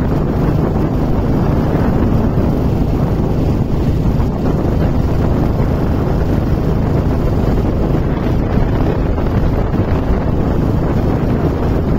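Steady, loud wind buffeting the microphone from travelling at speed in an open vehicle, with a low rumble of the vehicle running underneath.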